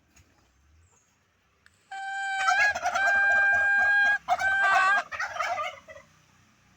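A domestic fowl gives one loud call about four seconds long: a steady held note, broken briefly around the middle, that ends wavering and dropping.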